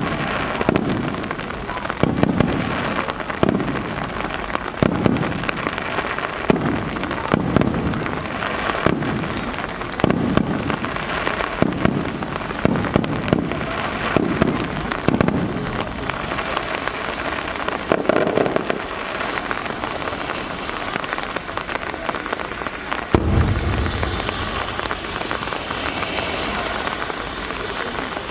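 Fireworks bursting in a rapid series, about one to two bangs a second, over a steady hiss of rain; the bangs give way to rain and crackle, and a deep boom with a long rumble comes about three quarters through.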